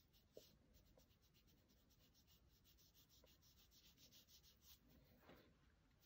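Near silence, with the faint scratch of a round watercolour brush stroking quickly across paper in a run of short strokes.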